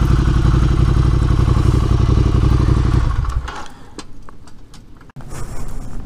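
Ducati Scrambler's L-twin, breathing through an aftermarket Delkevic exhaust, running steadily at a standstill with an even low pulse, then switched off about three seconds in. The sound dies away over half a second, leaving a few faint ticks.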